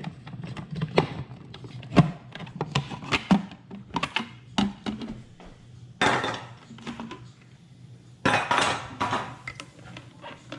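Kitchen clatter: scattered knocks and clinks of dishes and utensils being handled, with two longer rustling-scraping stretches about six and eight seconds in.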